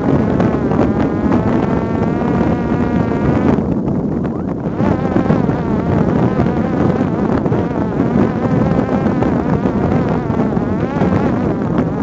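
Parrot Disco fixed-wing drone's brushless electric motor and propeller buzzing in flight, its pitch wavering up and down, over heavy wind rush on the onboard microphone. The higher buzz drops away briefly about four seconds in, then returns.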